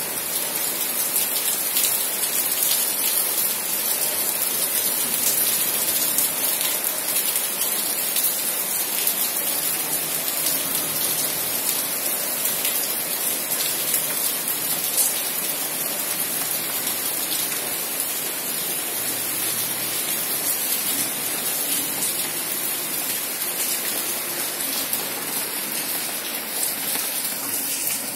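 Steady rain falling, an even hiss made of countless small drop hits that holds at the same strength throughout.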